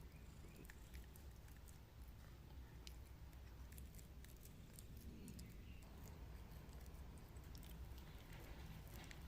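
An elderly cat eating boiled egg: faint, scattered small clicks of chewing.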